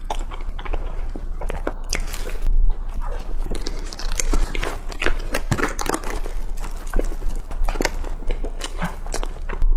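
A person biting and chewing pork floss bread: a dense run of small clicks and crackles from the mouth, over a steady low hum.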